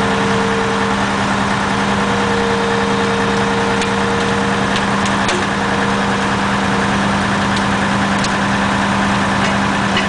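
Truck engine idling steadily with a constant hum, a few light ticks over it in the second half.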